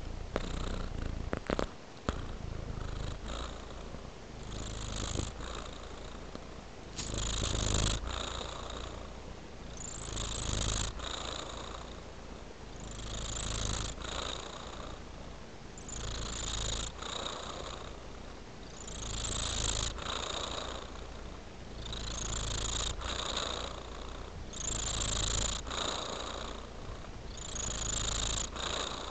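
Tabby-and-white kitten purring contentedly while being stroked, the purr swelling and fading in a regular cycle about every three seconds with its breathing. A couple of soft clicks about two seconds in.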